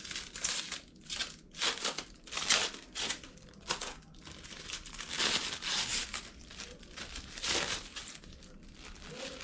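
Packaging wrap crinkling and rustling in irregular bursts as it is handled and pulled off a newly unboxed item.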